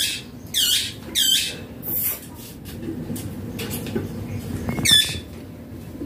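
Indian ringneck parakeet giving short, shrill, downward-sweeping squawks: three in quick succession at the start and one more about five seconds in.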